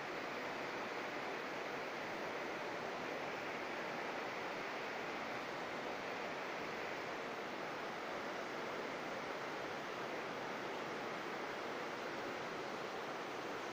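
Steady rush of a fast-flowing mountain river, an even hiss of running water without breaks.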